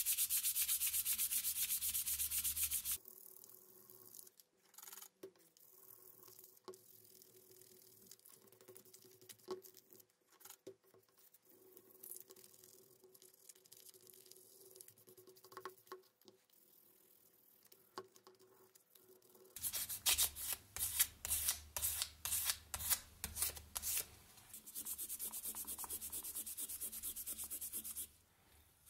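Sandpaper rubbed by hand over small painted metal vise parts. It starts with a few seconds of fast continuous sanding, then a long stretch of faint rubbing. Later come separate strokes about twice a second and another spell of continuous sanding near the end.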